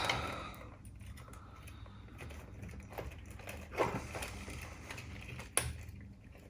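A few sharp clicks and taps from small parts of a cassette deck's tape transport being handled and fitted during reassembly, three of them scattered through the second half.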